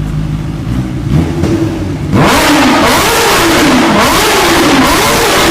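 Kawasaki Ninja H2 superbike engine through an SC-Project aftermarket exhaust, revved while standing. It idles at first, then from about two seconds in the throttle is blipped repeatedly, about once a second, the engine note rising and falling sharply each time.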